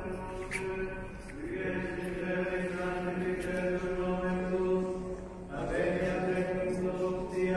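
Liturgical chant sung by men's voices in long held notes, with a new phrase starting about a second and a half in and again near the end.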